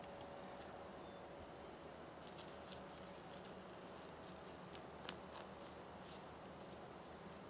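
Faint crackling and clicking of soil, roots and debris being worked as weeds are dug out by hand: a scatter of small clicks starting about two seconds in, the sharpest a little past the middle, over a faint steady hum.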